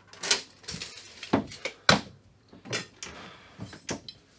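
Steel wall plate of a fixed flat TV bracket handled and set against an MDF wall, with a tape measure put down: about half a dozen sharp knocks and clicks with scuffing between them, the sharpest about two seconds in.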